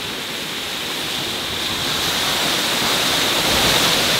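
Waterfall pouring down close by, a steady rush of falling water that grows slowly louder.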